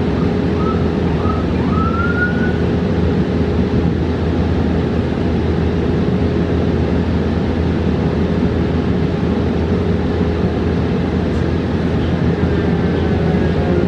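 Cabin noise inside a New Flyer XE40 battery-electric bus in motion: steady road and tyre rumble under a level hum. A few short rising whines come in the first couple of seconds, and fainter falling tones come near the end.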